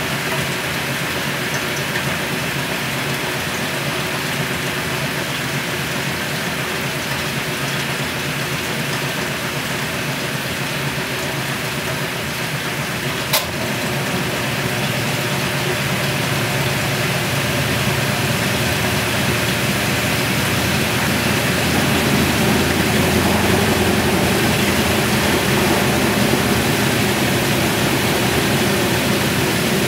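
1963 Frigidaire Custom Imperial top-load washer spinning its basket: the motor and belt-drive Multi-Matic transmission running steadily with a wash of water noise, growing louder over the second half. A single sharp click a little before halfway.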